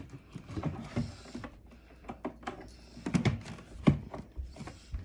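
Knocks, bumps and handling clatter of a plastic mini fridge being turned and handled, with a sharp knock near four seconds in.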